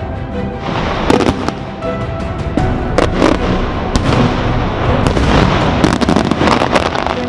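Aerial fireworks going off: a dense run of sharp cracks, pops and crackle starting about a second in, over background music.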